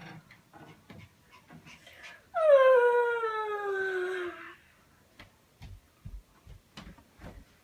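Spitz dog giving one long howl that slides down in pitch, lasting about two seconds and starting a couple of seconds in. Faint low sounds come before it and a few soft clicks after.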